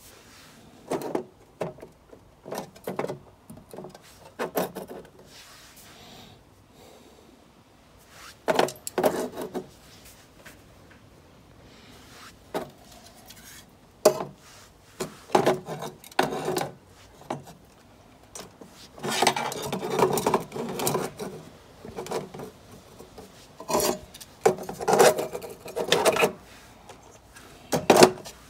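Stepper drive modules being slid around and set down on the floor of a metal controller box: irregular scraping and knocking, with a longer stretch of scraping about two-thirds of the way through.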